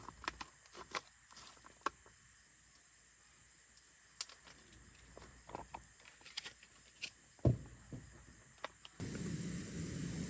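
Scattered light clicks and knocks, with one louder thump about seven and a half seconds in, then a steady hiss that starts abruptly near the end.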